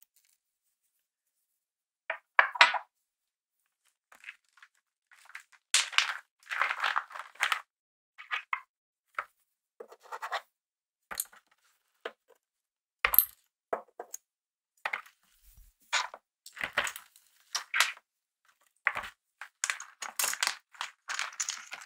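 A plastic zip-lock bag rustling and crinkling in the hands, with light clicks of metal tweezers and small metal washers and rings as they are dropped into the bag. The sounds come in short irregular bursts, busiest near the end.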